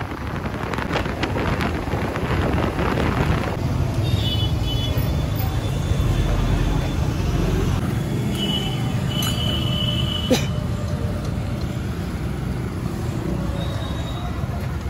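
Steady road-traffic noise with a low vehicle rumble. There is a rush of wider noise in the first few seconds, brief high tones around four and nine seconds in, and a sharp click near ten seconds.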